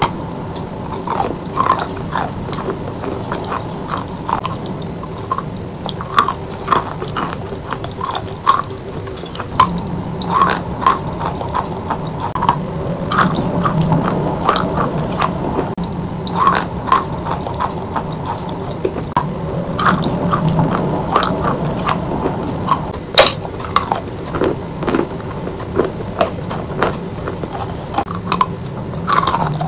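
A piece of Oktavia chalk, coated in wet paste, being bitten and chewed close to the microphone: irregular sharp crunches, one or two a second, over steady wet chewing. The sharpest crunch comes about 23 seconds in.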